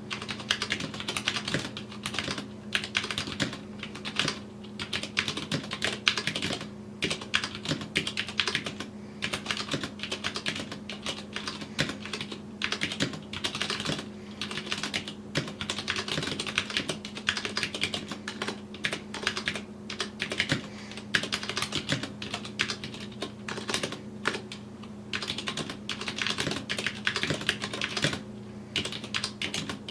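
Typing on a Vortex POK3R mechanical keyboard with Cherry MX Brown switches and PBT keycaps: a fast, irregular run of key clacks with brief pauses. A faint steady hum sits underneath.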